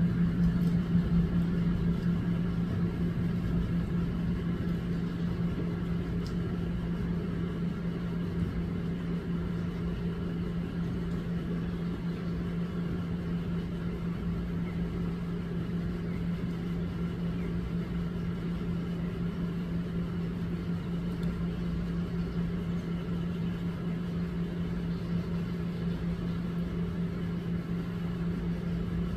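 A steady low machine hum holding one constant pitch throughout.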